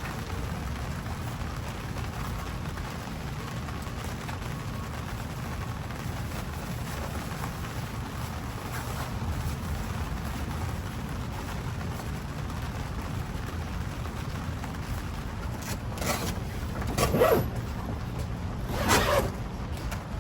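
Steady rain with wind noise rumbling on the microphone, and two short louder noises near the end, a couple of seconds apart.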